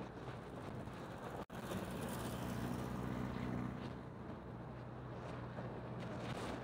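Vehicle engine running with a steady hum under road and wind noise on the microphone while driving along at speed. The sound cuts out for an instant about one and a half seconds in.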